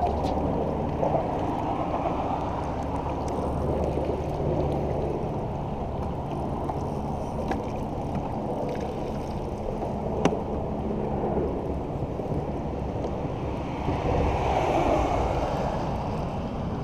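Wind on the microphone and water slapping against a kayak hull on choppy water, with an occasional sharp click.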